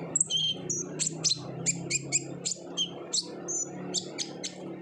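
Kolibri ninja sunbird singing a fast, busy run of sharp, high chirps and short twittering notes, some sliding in pitch, about three or four a second, over a steady low hum.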